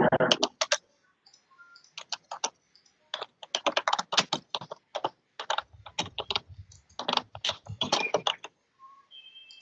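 Computer keyboard being typed on, irregular runs of keystrokes from about two seconds in until shortly before the end, after a brief rush of noise on the microphone at the very start.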